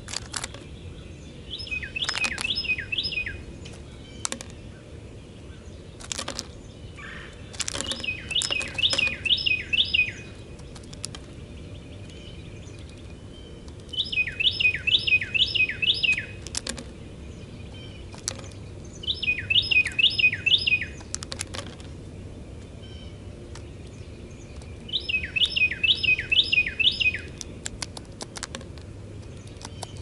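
A Carolina wren sings its loud rolling song five times. Each song is four or five quickly repeated ringing phrases lasting about a second and a half, coming every five or six seconds. Scattered sharp taps fall between the songs.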